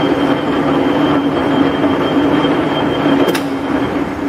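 LeBlond 18-inch engine lathe running with a steady mechanical whine from its 10 hp motor and headstock gearing. About three seconds in there is a sharp click as the mechanical clutch lever is thrown, and the whine starts to die away as the spindle is disengaged.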